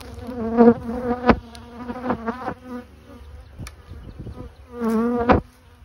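Swarming honeybees buzzing around the microphone, single bees flying close past with a buzz that swells and bends in pitch, loudest about a second in and again near the end. A couple of sharp clicks sound among the buzzing.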